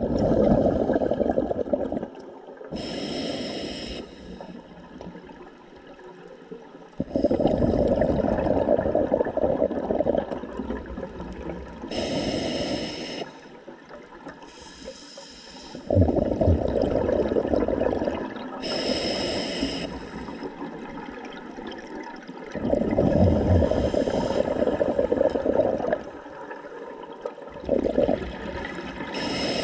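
Scuba diver breathing through an open-circuit regulator underwater. Each breath is a short hiss on the inhale, then a longer rumble of exhaled bubbles, repeating about every seven seconds.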